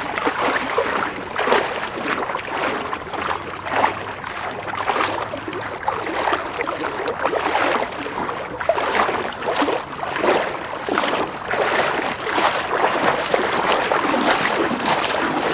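Someone wading through floodwater, the water sloshing and splashing with each stride, about one surge a second.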